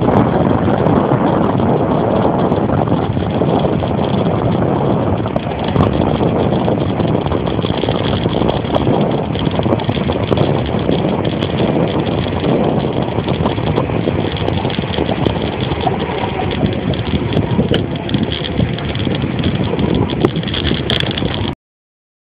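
Wind buffeting the microphone over the rumble of a bicycle's tyres rolling on an asphalt road, a steady noise with no engine tone. It cuts off suddenly near the end.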